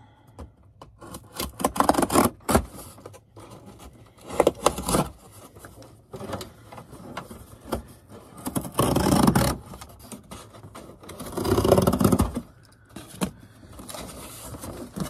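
Cardboard being scored with the blade of a large pair of scissors and handled: several irregular scraping strokes of about a second each, the longest two about 9 and 12 seconds in.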